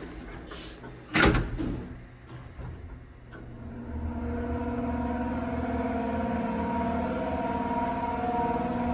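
A sharp knock about a second in. From about four seconds, a Westinghouse traction elevator's motor runs with a steady whine of several held tones and metal-on-metal scraping: its motor bearings are bone dry.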